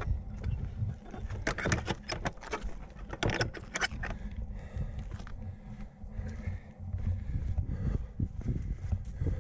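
Trail-running footsteps in Salomon Speedcross 4 shoes on a stony path, with wind buffeting the microphone. From about a second and a half in to about four seconds in there is a run of sharp wooden knocks and clatter as a wooden gate is handled, and then regular running steps again near the end.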